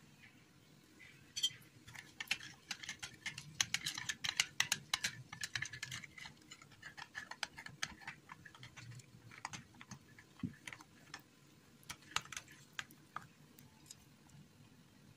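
A metal fork stirring in a bowl, its tines clicking and scraping quickly against the bowl's sides as the bread-dough ingredients are mixed. The clicking is thickest from a second or two in and thins out after about six seconds.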